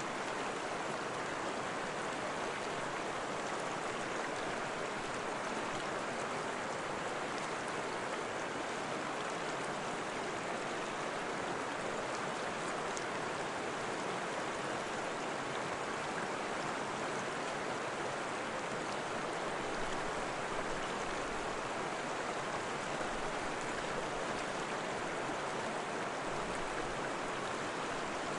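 Steady rushing of flowing water, even and unbroken throughout.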